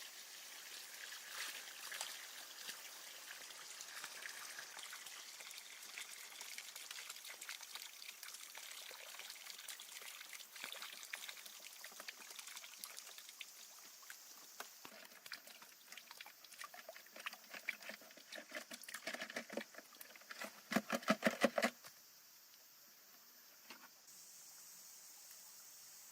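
Liquid pouring and trickling, with scattered small clicks. About twenty seconds in comes a short burst of rapid, louder knocks or splashes.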